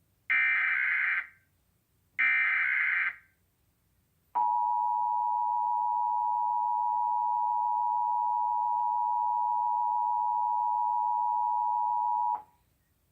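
Emergency Alert System broadcast alert for a national periodic test: two short screechy bursts of SAME digital header data about two seconds apart, then the EAS two-tone attention signal (853 and 960 Hz) sounding steadily for about eight seconds before cutting off.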